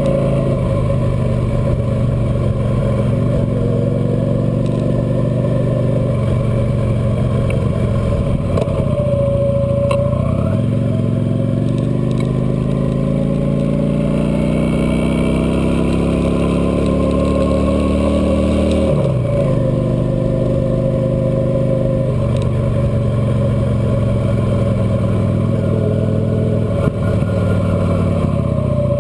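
Cruiser motorcycle engine running under way, its pitch climbing slowly through the middle and dropping sharply about two-thirds of the way in as the throttle changes. Steady road and wind noise underneath.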